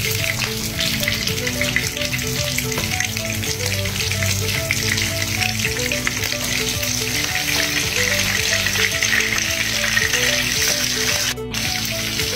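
Pieces of boiled, spice-marinated beef lung frying in hot oil in a pan, with a steady, dense sizzle and crackle of spitting oil. A light background melody runs underneath.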